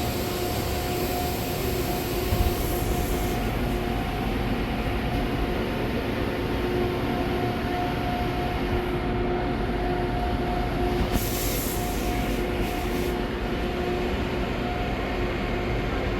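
Chiron FZ-08-S CNC vertical mill running, a steady machine whine over rumbling noise, with a high hiss that fades about three seconds in and comes back briefly near the eleven to thirteen second mark.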